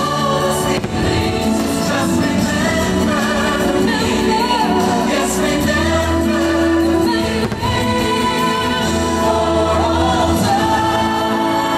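Holiday fireworks-show soundtrack: music with a choir singing, steady and loud.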